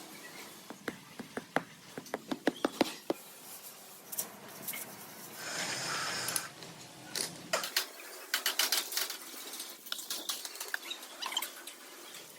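Irregular sharp taps and knocks from workshop work, coming in quick clusters, with a short hiss about five seconds in.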